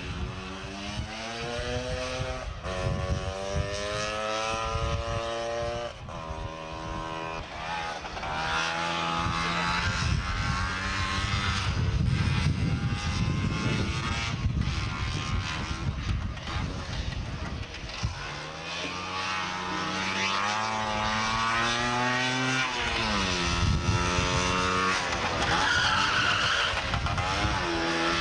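Two-stroke racing scooter sidecar outfits revving hard up a hill one after another. The engine pitch climbs and drops back several times.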